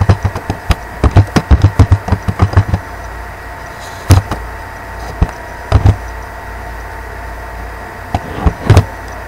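Computer keyboard keystrokes: a quick run of key taps in the first three seconds, then a few scattered single taps, over a steady background hum.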